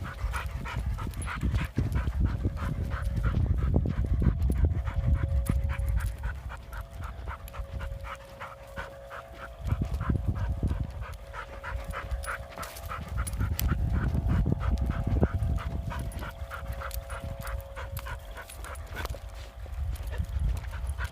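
A dog panting hard and fast, about four breaths a second, with a low rumble and a faint steady hum underneath.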